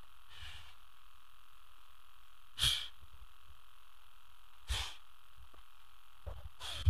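A person's short, sharp breathy exhalations, three of them about two seconds apart with the last the loudest, over a steady faint hum.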